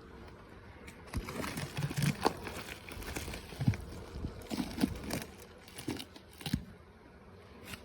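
Irregular crinkling rustles and light knocks of a beehive's boxes and frames being handled during an inspection.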